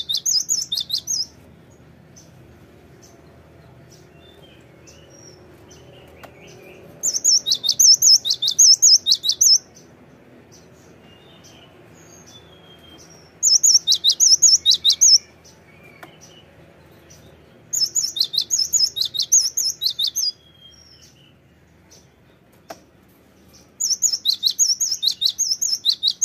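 Cinereous tit singing continually: bouts of quick, high, repeated notes, about four a second, each bout two to three seconds long and coming every four to six seconds, with soft calls in between.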